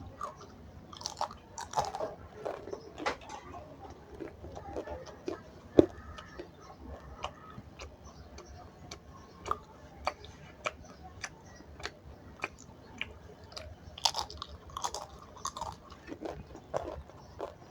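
Close-up chewing and biting of food, with many short, irregular crunches and wet mouth clicks, a few louder crunches standing out.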